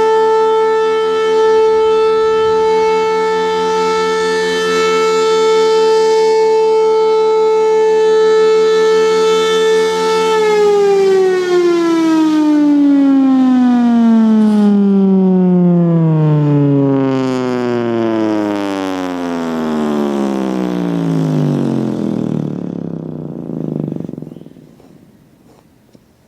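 Federal Signal Thunderbolt 1000A outdoor warning siren with a single-tone chopper, holding its steady alert tone, then winding down from about ten seconds in. The pitch falls smoothly for some fourteen seconds as the rotor slows, and the sound fades out near the end.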